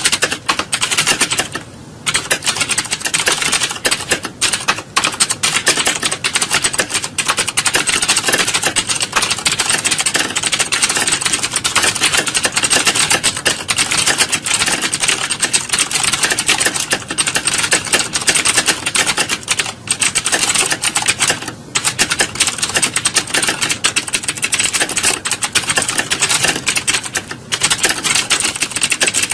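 Fast, continuous typing: a dense run of key clicks with a few brief pauses.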